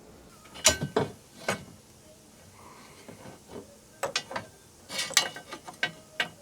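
Irregular sharp clicks and knocks in small clusters, from hand work with clamps and wooden brackets as they are set in place.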